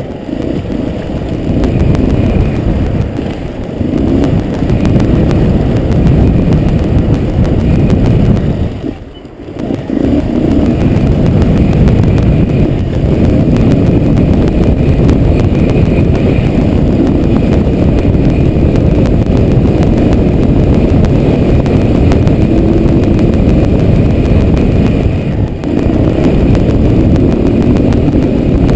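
Motorcycle engine running under way, mixed with dense low wind rumble on a helmet-mounted camera. The sound drops away briefly about nine seconds in and again shortly before the end.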